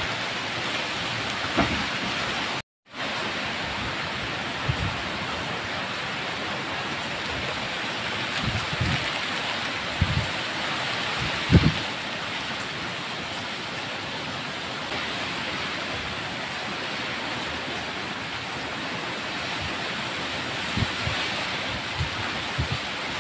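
Steady hiss of typhoon rain and wind, with a few brief low thumps scattered through it. The sound drops out completely for a moment about three seconds in.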